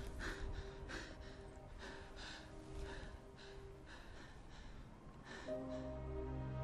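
A man's heavy, ragged breathing: short panting breaths about two a second. Music fades in near the end.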